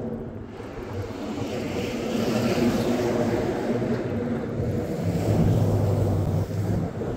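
Boat's outboard motor running with a steady hum, which grows louder about five seconds in.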